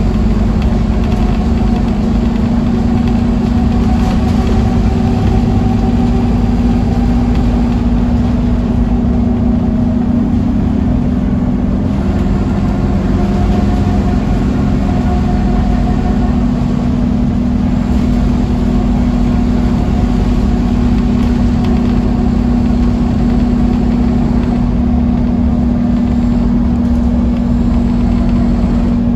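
Scania N230UD OmniCity double-decker bus under way, heard from inside the lower deck: its five-cylinder diesel engine and drivetrain run at a steady pace with a constant hum over low road rumble.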